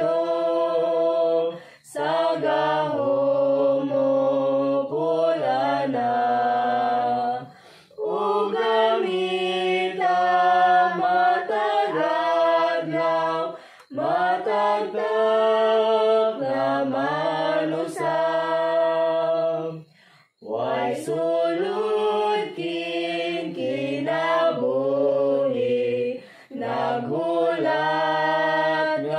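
A small group of voices, a woman and children, singing a Cebuano hymn unaccompanied, in sustained phrases broken by short pauses for breath.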